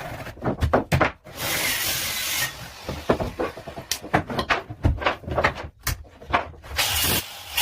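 Carpentry work on wood: a run of irregular knocks and taps, with about a second of steady scraping a little over a second in, and a few short scraping strokes near the end.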